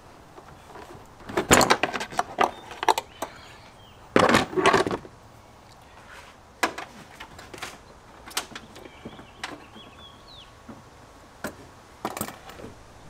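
Clicks, knocks and clattering of hard plastic intake parts being handled and worked loose in an engine bay. There are two bursts of rattling, about a second in and about four seconds in, then scattered single clicks.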